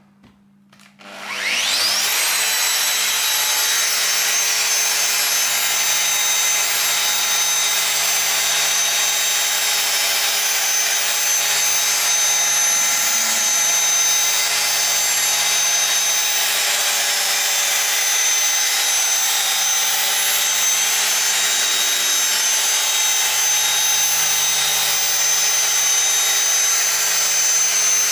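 Rotary polisher spinning up about a second in, its pitch rising quickly, then running steadily with a high whine while compounding car paint.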